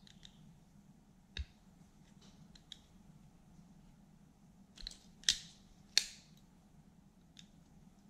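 Hand crimping pliers clicking and snapping as a connector terminal is crimped onto a wire: a few light clicks, then a pair of sharper snaps past the middle.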